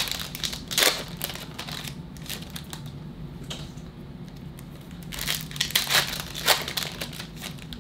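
Foil trading card pack wrappers crinkling and tearing as packs are ripped open and handled, in irregular bursts that are loudest just before a second in and again about five to six and a half seconds in.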